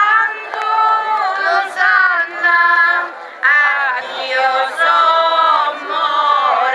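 Women's voices singing a processional hymn, with loud held notes and glides from one pitch to the next.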